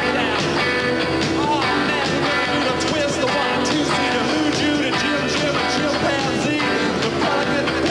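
Psychobilly rock band playing live: electric guitars and drums keep up a steady, loud beat while a man sings into the microphone.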